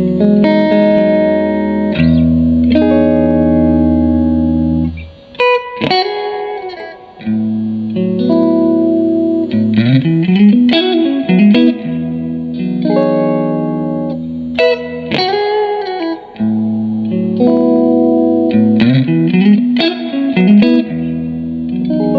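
Electric guitar played with a clean tone through a Fender Blues Junior IV tube combo amplifier. Held chords alternate with lead phrases that bend notes up and down several times.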